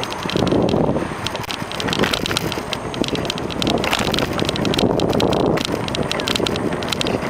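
A moving bicycle: wind rushing unevenly over the microphone, with a steady run of small rattles and clicks from the bike.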